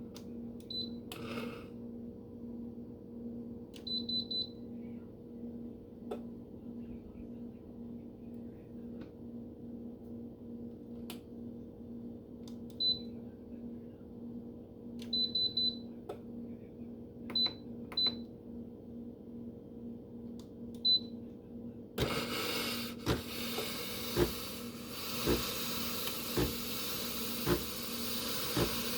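Espresso machine giving short high beeps as its buttons are pressed, over a steady low pulsing hum. About 22 s in, a loud steady hiss starts, with repeated clicks. The machine is faulty: it heats but delivers no steam or water.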